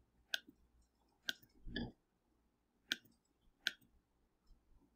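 Computer mouse button clicking: four short, sharp clicks a second or so apart, as the fill tool is applied to shape after shape.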